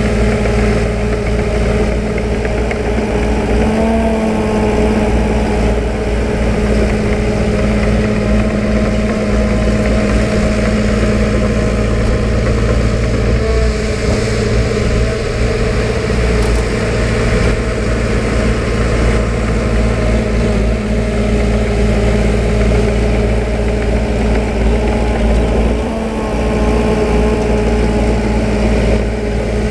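Diesel engine of a working earthmoving machine running at a steady speed, with brief small rises in pitch about four seconds in and again near the end.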